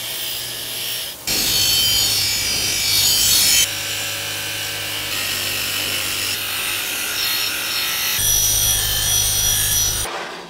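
Bench grinder spinning a wire wheel, with cast metal parts held against it: a steady low motor hum under a loud rasping hiss. The hiss changes abruptly several times and stops shortly before the end.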